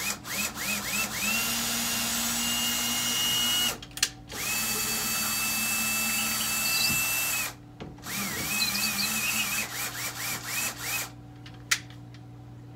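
Cordless drill driving a screw into drywall to open a hole for a wall anchor. The motor whine rises in pitch at each start: a few short trigger pulls, two longer steady runs, then more short bursts before it stops about eleven seconds in.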